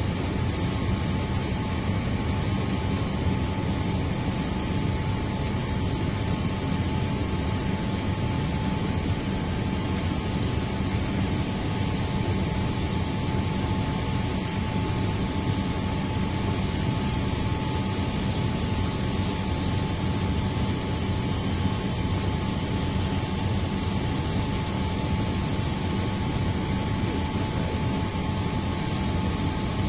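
Steady drone of running machinery: a low hum with a thin, constant whine above it, unchanging throughout.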